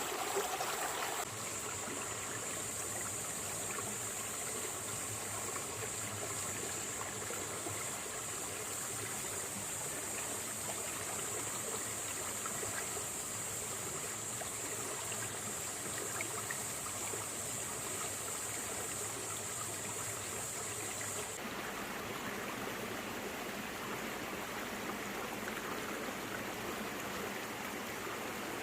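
Small rocky stream flowing and trickling over moss-covered stones, a steady babbling wash of water. Its sound changes abruptly about a second in and again about three-quarters of the way through.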